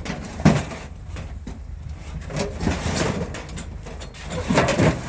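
A vehicle engine running with a steady low hum, with several knocks and clunks over it, the loudest about half a second in and again near the end.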